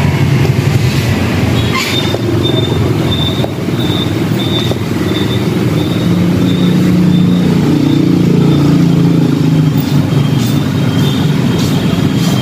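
Motorbike engine running close by, its pitch slowly wavering, with a high pulsing whine over it from about two seconds in.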